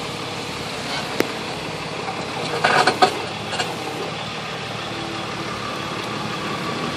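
Tow truck engine idling steadily, with a sharp click about a second in and a short burst of noise about three seconds in.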